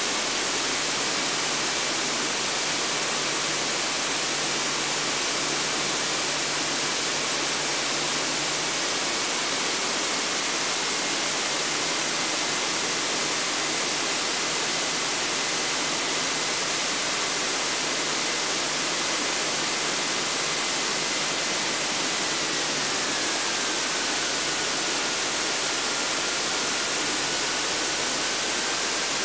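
Steady hiss of a light aircraft's intercom audio feed while the plane taxis, with a faint high whine under it that drops in pitch a little over two-thirds of the way through.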